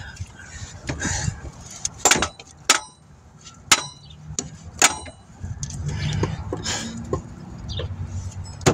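Sharp metallic clinks and knocks, about five spread through, some ringing briefly, as a replacement alternator is worked against its mounting bracket in a 2016 Dodge Journey's engine bay, not yet seating far enough for the bolt to go through. A low rumbling handling noise runs between them.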